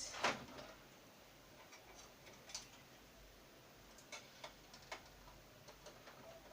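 Small plastic clicks and ticks from a Konica Minolta bizhub touch panel being handled as its cable connector is pulled out: one sharp click just after the start, then a few faint, scattered clicks.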